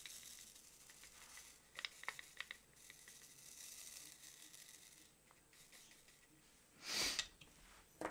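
Faint clicking and rattling of small resin diamond-painting drills being shaken and scooped in a plastic tray, with a short, louder rustle about seven seconds in.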